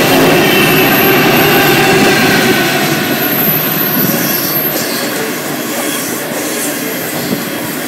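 A coal train's trailing diesel locomotives run past at full sound for the first couple of seconds. The hopper wagons then roll by with a steady wheel-and-rail rumble that eases slightly as the locomotives draw away.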